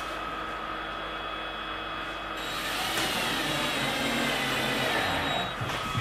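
Cordless drill driving screws into the plywood deck of a stitch-and-glue kayak. The motor whine gets louder about two and a half seconds in, falls slowly in pitch, and stops shortly before the end.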